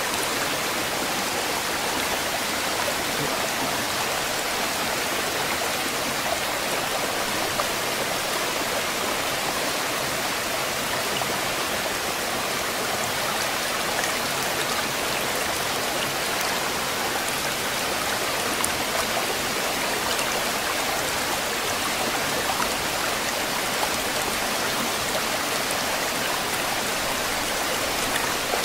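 Steady, even rushing noise like running water, with no breaks or distinct events.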